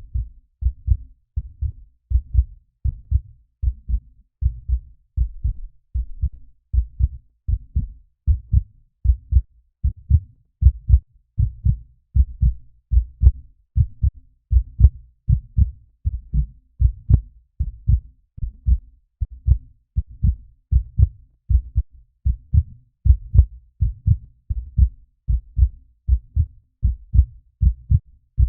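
Heartbeat sound effect: a steady, regular train of low double thumps (lub-dub) at a resting pace.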